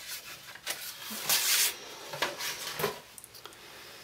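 Handling noise as a silkscreen frame is taken out of its exposure kit: rubbing and scraping of the screen and plastic parts, loudest in one rustling scrape about a second and a half in, with a few light knocks around it.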